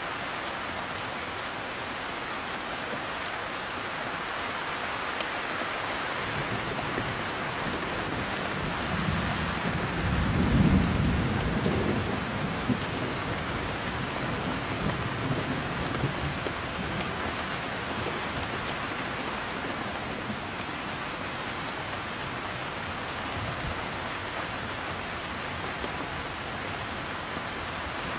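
Steady heavy rain falling, with a roll of thunder that builds about six seconds in, is loudest around ten to twelve seconds in, and rumbles away over the following several seconds.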